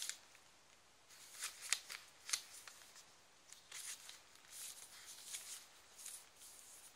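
Faint rustling and swishing of paper as the pages, tags and cards of a handmade paper journal are handled and turned: a few quick, sharp swishes in the first half, then softer, longer rustles.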